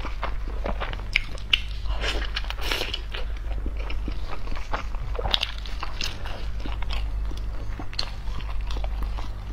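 Close-miked chewing of a large soft steamed bun (baozi): wet mouth sounds and irregular small clicks, over a steady low hum.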